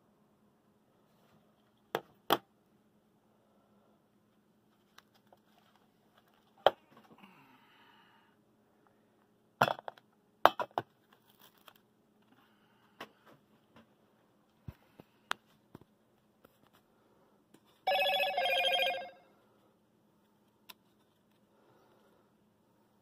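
Scattered sharp clicks and knocks as a small low-temperature-difference Stirling engine and a mug of hot water are handled on a wooden table. About three-quarters of the way in there is a pulsing pitched tone lasting about a second.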